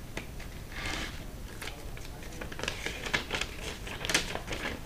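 Packaging being handled during an unboxing: a brief rustle about a second in, then a run of light clicks and taps.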